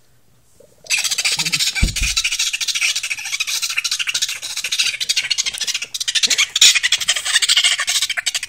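Harsh, raspy noises made by people's mouths and breath, starting about a second in and continuing loudly and rapidly without a break.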